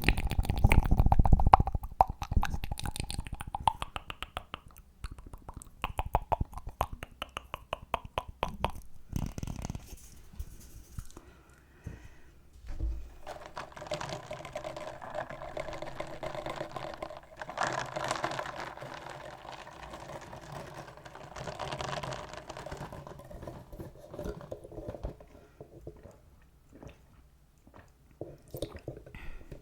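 Close-miked ASMR mouth sounds and fast tapping: a quick run of many small clicks for the first several seconds. From about thirteen seconds in comes a longer stretch of soft, hissy rustling.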